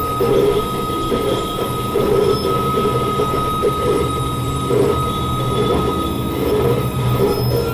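Analog modular synthesizer playing a dense electronic noise drone: a low rumbling layer that swells irregularly, with a steady high tone held over it that drops out briefly a little before five seconds in.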